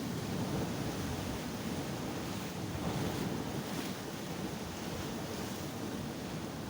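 Sea waves washing onto the shore in a steady rush of surf, with wind rumbling on the microphone.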